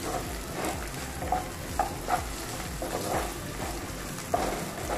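Thin-cut potato strips sizzling in hot oil in a kadai, stirred with a wooden spatula that scrapes and knocks against the pan about twice a second.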